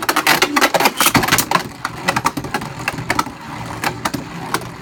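Two plastic Beyblade Burst spinning tops whirring in a stadium and clashing, with many rapid sharp clicking hits as they collide.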